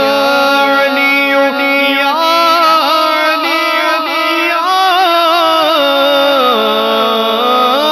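Devotional kalam singing: a male voice draws out a long, wavering melismatic line without clear word breaks, over a steady low drone.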